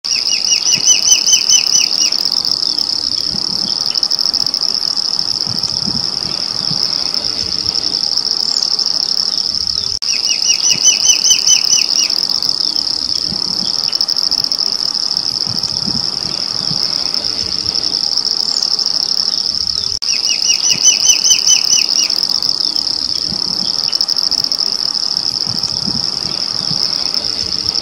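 Green-backed becard giving its call three times, about ten seconds apart, each a quick series of about ten short whistled notes lasting some two seconds. A steady high insect drone runs under it throughout.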